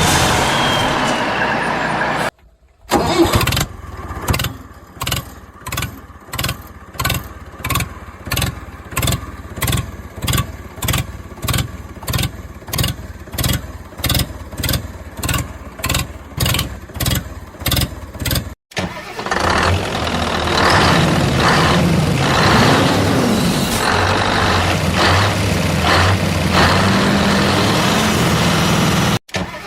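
Vehicle engine sounds joined by abrupt cuts: for about fifteen seconds a regular pulsing of about two beats a second, then an engine running steadily with some rising and falling pitch.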